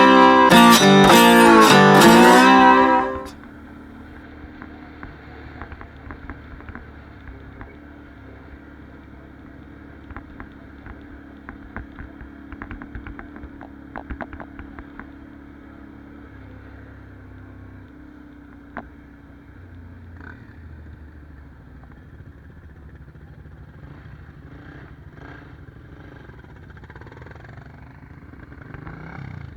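Guitar-led music that cuts off about three seconds in, then a Can-Am 570 ATV engine running steadily at low level with scattered light knocks and rattles.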